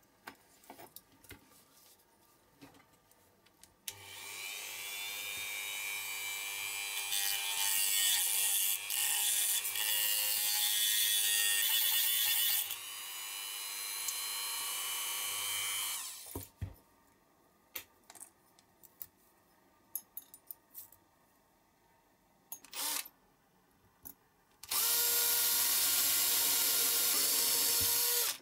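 A rotary multitool spins up about four seconds in and grinds on the diecast metal parts of a toy truck for several seconds, then runs on more quietly until it stops, about twelve seconds after starting. Near the end a cordless drill runs steadily for about three and a half seconds, drilling into the red diecast body. Small clicks of metal parts being handled fall in between.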